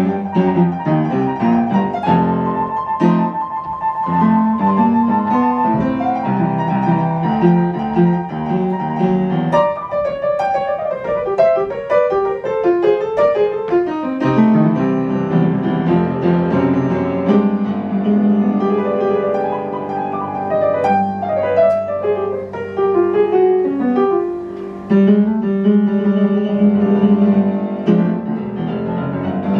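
Upright piano played live in a jazz-blues style: fast repeated high notes over a bass line at first, then quick runs up and down the keyboard, with a brief drop in loudness about two thirds of the way through.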